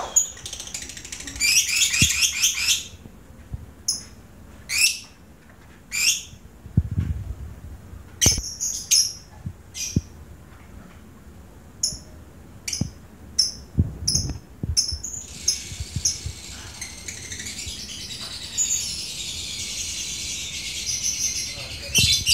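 Caged lovebirds calling: a short burst of rapid, high chattering, then a string of single sharp chirps about a second apart, then from about 15 seconds in a long, unbroken chattering trill, the 'ngekek' song that fighter lovebirds are trained for.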